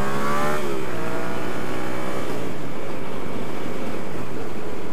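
Yamaha MT-07's parallel-twin engine through a Mivv Speed Edge slip-on exhaust, heard from the rider's seat. Its pitch climbs under acceleration, drops sharply about half a second in, then rises gently again before settling into steady running under road and wind noise.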